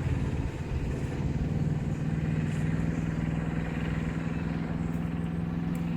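An engine running steadily at an even pitch, with a low rumble beneath it.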